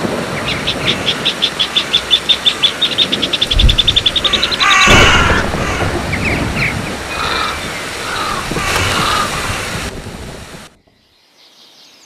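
A rapid run of high, clipped bird calls, about ten a second for some four seconds, followed by a loud harsh caw from a crow about five seconds in. Scattered chirps follow over a steady low rush. The sound cuts off abruptly near the end.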